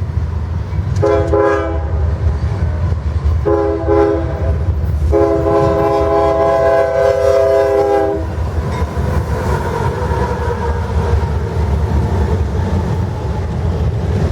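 Multi-chime air horn of a GE ES40DC locomotive leading a CSX intermodal train, sounding three blasts: two short ones, then one long one of about three seconds. The diesel locomotives and the train's wheels on the rails rumble steadily beneath and after the horn as the train goes by at speed.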